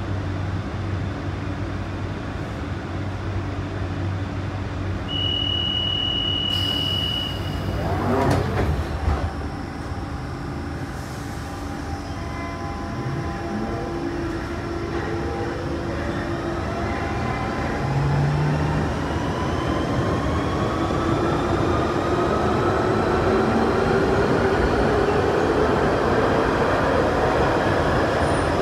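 London Underground 1992 tube stock train: a steady door-closing warning tone sounds for about two seconds, the doors shut with a knock, and the train pulls away, its traction motors whining and rising in pitch as it accelerates.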